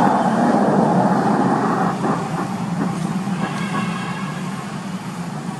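Steady motor-vehicle engine noise that fades gradually over the last few seconds, with a faint high-pitched call about three and a half seconds in.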